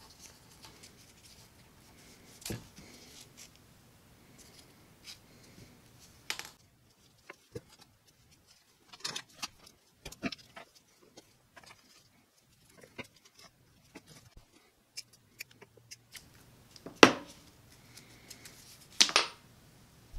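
Handling sounds of hand-stitching a leather strap around a steel D-ring: scattered light clicks and clinks of needles, needle-nose pliers and the metal ring. Two louder clinks come in the last few seconds.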